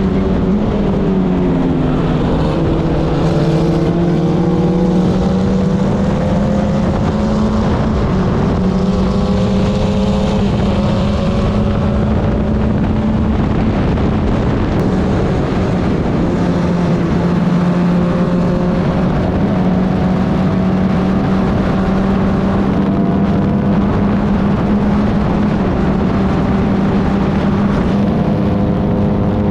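Club Ford race car engine running hard at high revs with wind rushing past; the revs drop about a second in, as if braking for a corner, then climb back up over several seconds and hold fairly steady with small dips.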